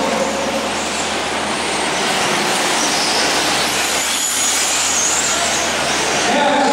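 Several radio-controlled racing truggies running together at high revs, a steady dense buzz of small motors with a higher whine that rises and falls about halfway through.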